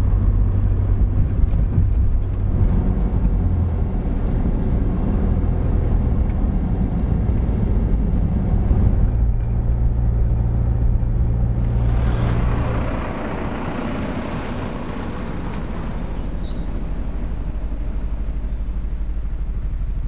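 Toyota car driving on the road, heard from inside the cabin: a steady low engine and road drone. About two-thirds of the way through, the sound shifts to a broader hiss of tyre and wind noise with less low hum.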